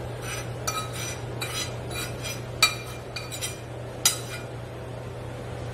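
Cooking utensil clinking and scraping against a glass bowl and a metal pan while sautéed vegetables are moved into the bowl: a run of light clinks, with two sharper knocks about two and a half and four seconds in. A steady low hum runs underneath.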